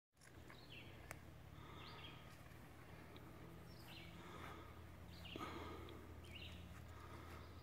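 Faint birds chirping outdoors, short calls repeating every second or so over a low steady hum, with a single click about a second in.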